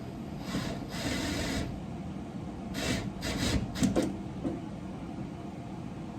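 Tool scraping and rubbing inside a car door as the side mirror's hidden 10 mm nut is worked loose: a few short scrapes, then a cluster of scrapes ending in sharp clicks about four seconds in.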